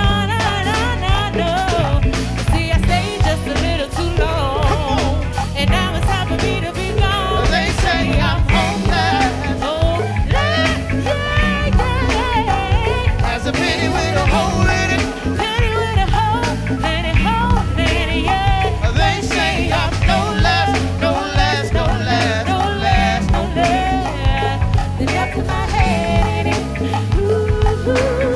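Live band playing go-go ("crank") music, with a singing voice over a steady beat.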